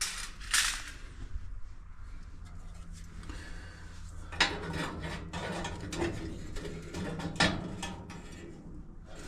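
Metal and plastic dryer parts being handled and turned by hand while the blower wheel is threaded onto the motor shaft: scattered clinks and clicks, the loudest about half a second in, about four and a half seconds in and about seven and a half seconds in, over a low steady hum.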